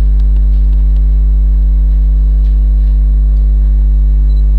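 Loud, steady electrical mains hum with a buzzy ladder of overtones, with a few faint clicks over it.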